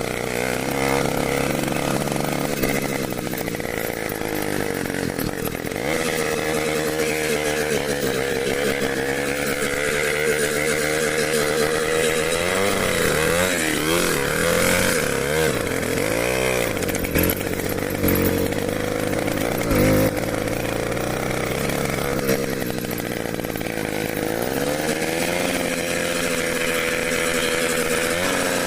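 Small motorcycle engine running, revved up and down several times about halfway through, then settling back to a steady run.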